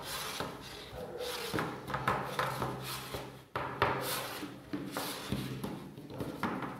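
Hands pressing and pushing raw pizza dough out across an oiled pizza pan: a string of irregular soft rubbing and pressing strokes.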